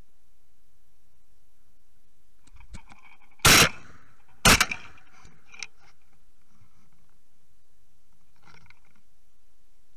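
Shotgun fired twice about a second apart at doves in flight, with a few smaller clicks just before and after the shots.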